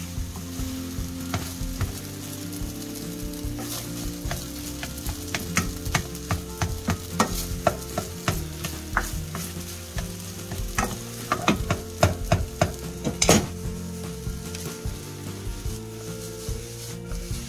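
Ramen fried rice sizzling in a nonstick wok while a spatula stirs it, with frequent sharp scrapes and taps of the spatula on the pan. The strokes come thickest in the second half, the loudest a little past the middle.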